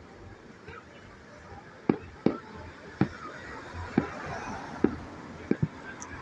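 Fireworks exploding, about seven sharp bangs at irregular intervals starting about two seconds in, two of them close together near the end.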